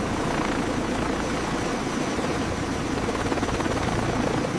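V-22 Osprey tiltrotor running on the ground with its nacelles vertical: the steady, dense noise of its two proprotors and turboshaft engines, with a faint high whine over it.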